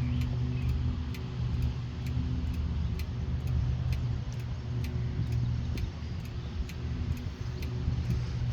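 Low, steady engine rumble with a sharp, regular ticking about three times a second over it.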